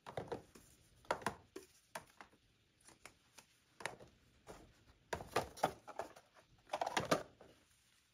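Plastic baby bottles and small cardboard boxes being set down into a clear plastic storage bin: scattered light knocks and taps, some in small clusters, over several seconds.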